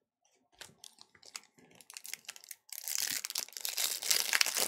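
Foil wrapper of a Pokémon card booster pack crinkling as it is handled, with scattered small crackles at first, then a loud, continuous crinkling and tearing as the pack is ripped open, from just under three seconds in.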